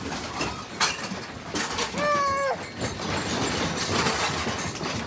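A room shaking in an earthquake: a steady rattling noise with a few knocks. A cat meows once about two seconds in, its pitch falling at the end.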